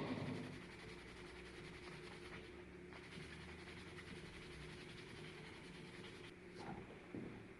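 Faint room tone with a low steady hum, and a couple of soft knocks near the end.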